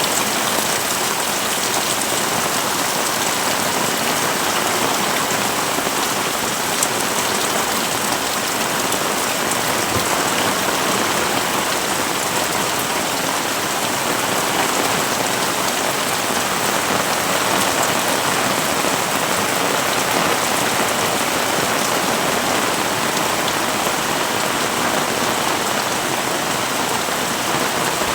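Heavy rain falling steadily, a dense, even hiss of drops hitting surfaces, with a single faint tick about seven seconds in.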